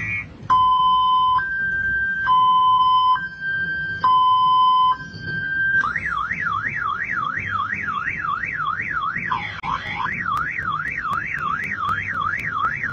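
Motorcycle anti-theft alarm sounding its electronic siren: first a two-tone alternation, low and high about once a second, then about six seconds in it switches to a fast rising-and-falling warble, about two sweeps a second.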